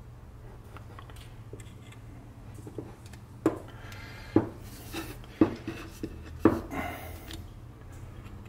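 Butt of a wooden hatchet handle knocked down on a workbench about four times, roughly a second apart, with a few lighter taps between, over a low steady hum.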